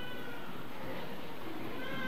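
A small child's high-pitched cry, drawn out for under a second, then starting again near the end, over a steady room murmur.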